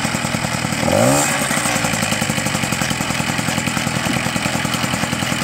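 Peugeot 103 moped's 50 cc two-stroke single-cylinder engine running at idle with a fast, even pulse. It gets a short blip of the throttle about a second in that makes the pitch sweep up and fall back.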